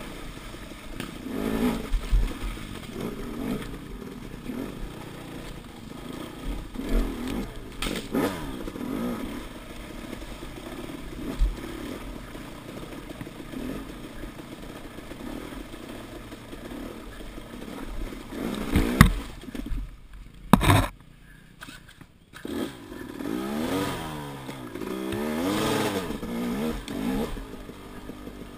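KTM enduro dirt bike engine running as it is ridden, the revs rising and falling with the throttle. About two-thirds of the way through there are two sharp knocks. After them the engine drops low for a second or so, then revs up and down again.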